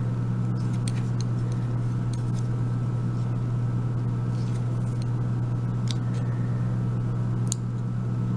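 Small metal clicks and ticks from the pin chambers of an Abus 34/55 padlock cylinder as a thin metal tool works the top pins out, with a sharper click near the end. A steady low hum runs underneath throughout.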